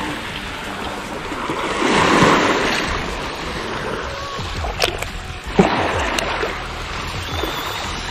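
Small sea waves washing and splashing against shoreline rocks, swelling about two seconds in, with a few sharp clicks near the middle.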